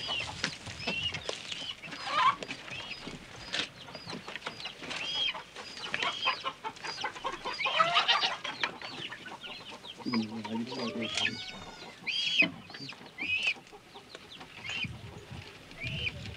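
Domestic chickens clucking, with short high chirping calls repeating about once a second and a longer, lower call about ten seconds in.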